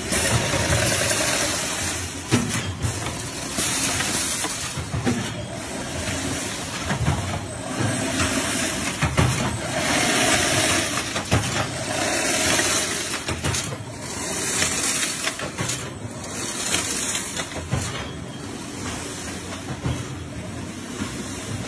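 Chain link fence weaving machines running: a steady mechanical clatter and hiss that swells and eases every couple of seconds, with scattered knocks.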